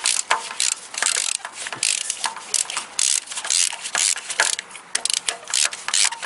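Ratchet wrench on a spark plug socket extension clicking in quick back-and-forth strokes, about three a second, as a new spark plug is tightened into the cylinder head.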